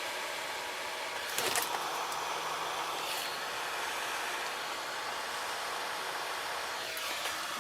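Hot air gun blowing steadily, melting the surface of the plastic to smooth it, with a brief knock about one and a half seconds in.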